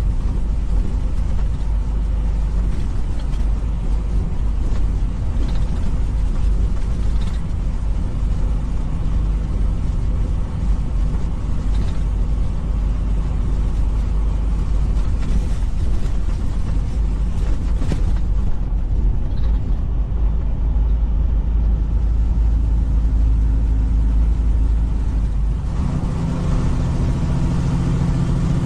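Semi truck engine and road noise heard from inside the cab while driving, a steady low rumble. About three seconds before the end the engine note grows stronger.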